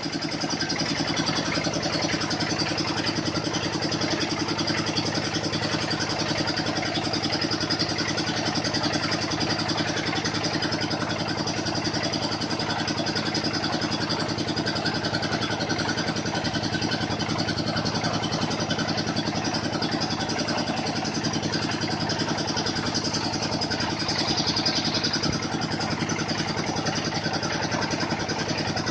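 Small engine of a water-well drilling machine running steadily at a constant speed, with a fast even pulse.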